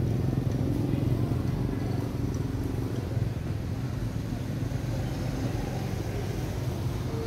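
A steady low rumble, like a motor vehicle's engine running, throughout.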